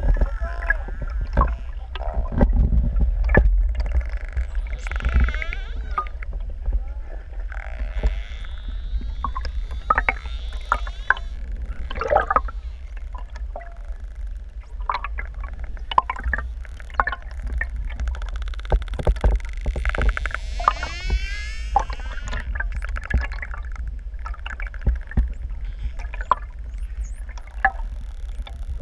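Underwater sound of pantropical spotted dolphins whistling and clicking: gliding whistles that rise and fall come in clusters, with scattered sharp clicks, over a steady low rumble.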